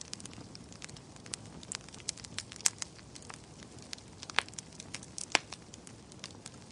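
Bonfire burning: a low steady hiss of flames with irregular sharp crackles and pops from the burning wood, a few louder snaps standing out.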